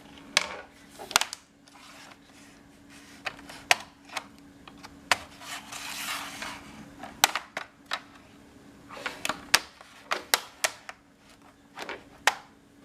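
Sharp, irregular clicks and taps of a screwdriver and small screws as the bottom-panel screws of a Dell laptop are undone, with a short scrape about six seconds in. A faint steady hum runs underneath.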